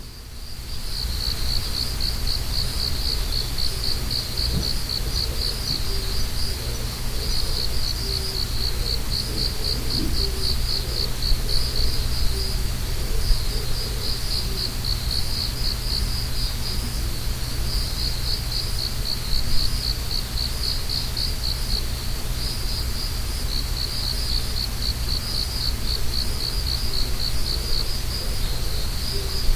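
Autumn insects chirping in a steady, rapidly pulsed high trill that goes on with only short breaks, over a low steady outdoor rumble.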